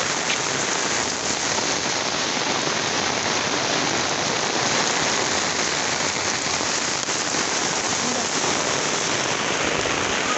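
Heavy rain falling steadily on wet paving, roofs and garden plants: a dense, even hiss of rain with no let-up.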